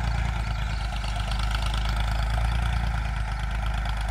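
Ford 3600 tractor's three-cylinder diesel engine running steadily under load while pulling a disc harrow. It exhausts through a non-original aftermarket silencer pipe.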